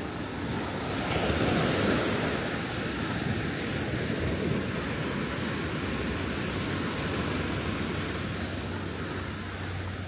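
Ocean surf washing onto a sandy beach, with one wave surging in louder about a second in, and some wind on the microphone.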